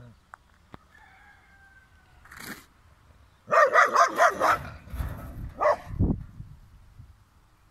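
Dog barking: a single bark, then about a second later a loud rapid string of barks, followed by a few more spaced barks.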